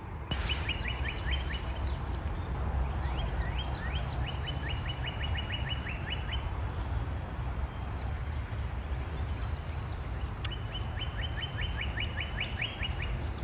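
A songbird singing runs of quick, evenly repeated downward-slurred notes, about six a second, three times: right at the start, in the middle and near the end. A steady low rumble runs underneath.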